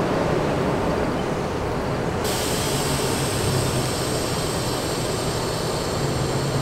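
A Budd R32 subway train standing in the station with its doors open, its equipment running with a steady low hum. About two seconds in, a steady high hiss starts abruptly and continues.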